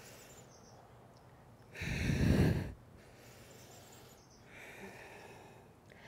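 A woman's audible breathing through cat-cow: a strong out-breath about two seconds in, then a softer breath near the end.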